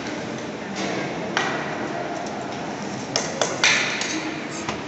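Stainless steel plates and tumblers clinking and knocking against steel serving tables: a few sharp metallic clatters, then a quick cluster of several in the second half, over steady hall noise.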